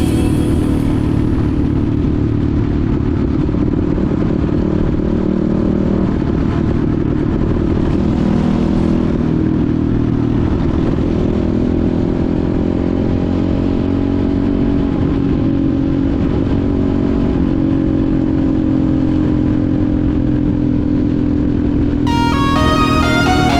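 Enduro motorcycle engine running while riding, its pitch rising and falling slowly with the throttle.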